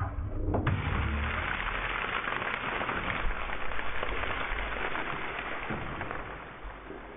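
Quartered onions sizzling in hot oil in a preheated roasting pan on a gas grill. The sizzle starts suddenly about half a second in as the onions hit the oil, then slowly dies down.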